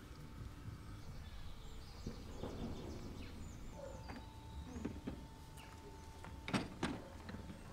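Quiet outdoor ambience with birds chirping and a faint steady tone that comes in about four seconds in. A few knocks and clatters from a wheeled mop bucket being pulled along concrete, and footsteps, grow loudest near the end.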